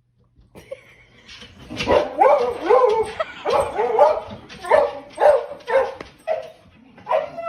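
A dog barking and yipping in a quick string of short, high calls, about two a second, starting about two seconds in.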